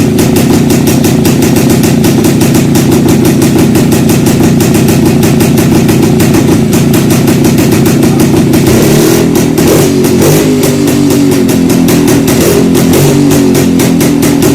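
Old Jawa two-stroke motorcycle engine running with a fast, even firing beat. About nine seconds in, guitar music comes in over it.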